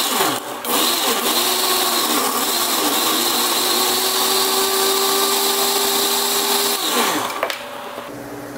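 Countertop blender motor running at full speed, liquefying tomatoes, roasted red pepper and stock into a sauce. Its pitch wavers during the first few seconds while chunks are breaking up, then holds steady as the mix turns smooth. About seven and a half seconds in, the motor is switched off and winds down.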